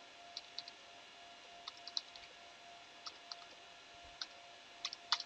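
Computer keyboard keys clicking in short bursts of typing, a few keystrokes at a time, with a cluster of louder clicks near the end. A faint steady hum sits underneath.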